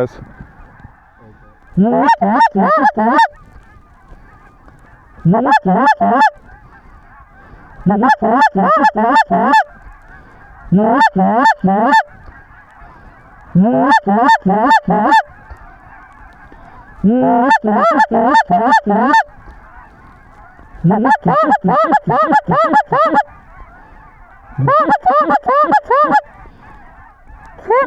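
Hand-blown goose calls sounding in eight loud bursts of rapid honks and clucks, about one burst every three seconds, calling to incoming geese. A faint, steady honking of a flock carries underneath.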